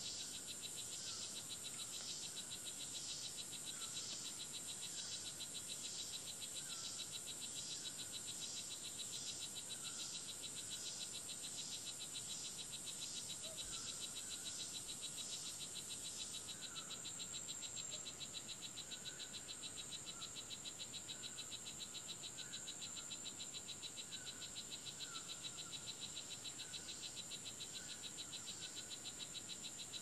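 Rainforest chorus of insects trilling steadily at a high pitch, with a short falling chirp, like a frog's call, repeating about once a second. A pulsing layer in the trill drops out about halfway through, leaving a steady high whine.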